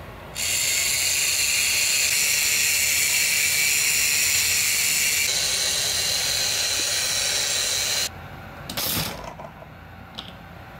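K'nex battery motor whirring through its plastic gear-reduction train, a loud steady grinding whine as it pulls the bungee launch back. It stops abruptly about eight seconds in, with a short rustling burst about a second later.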